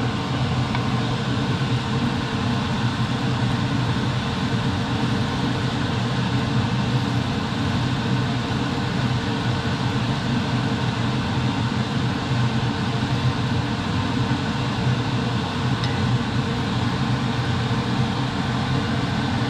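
Kitchen range hood fan running steadily: a low hum under an even rush of air, with no change in level.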